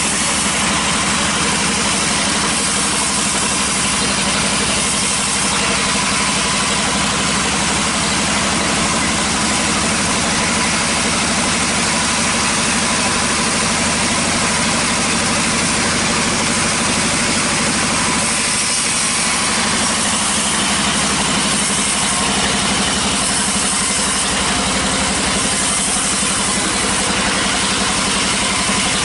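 Vertical sawmill bandsaw running steadily while a teak log is fed through the blade. Its drive makes a constant machine drone.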